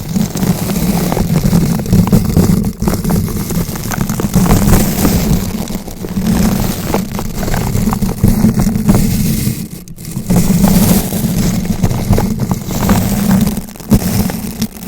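Bristle brush rotated against a bare microphone: continuous scratching and crackling with a heavy low rumble from the mic being rubbed, broken by a few short lulls, the deepest about ten seconds in.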